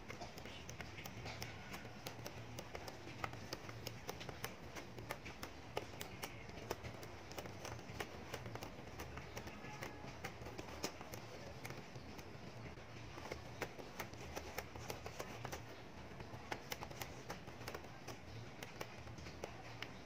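Small magnetic balls clicking as they snap together and are pressed into a flat sheet: irregular sharp clicks, several a second.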